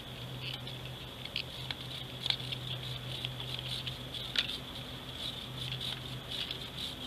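Sticks of sidewalk chalk being rubbed against small handheld metal graters, giving irregular scratchy rasps and light clicks. A steady high-pitched insect buzz runs underneath.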